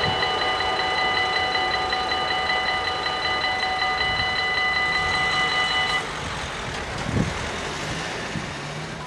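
Electronic railroad crossing bells ringing with a steady high tone while the half-barriers lift after the train has passed. They cut off suddenly about six seconds in, leaving road traffic noise and a short knock near the end.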